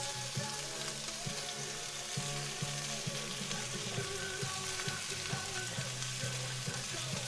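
Onions and garlic frying in a cast iron skillet, a steady sizzle throughout.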